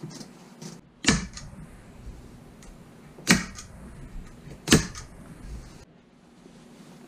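Hand staple gun fired three times, each a sharp snap, driving staples into a strip of carpet, with a few faint clicks of handling in between.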